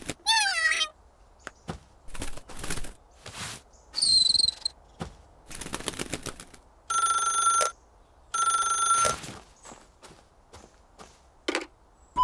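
Cartoon telephone ringing twice, two steady rings of about a second each a little past the middle, before scattered short taps and rustles and a brief high chirp about four seconds in.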